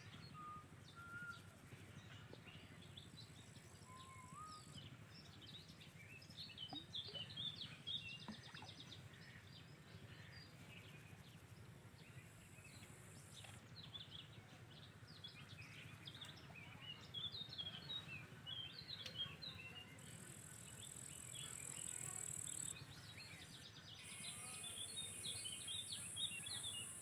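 Faint outdoor ambience: many birds chirping and calling at once, with a high insect buzz that comes and goes in stretches of a few seconds, over a low steady hum.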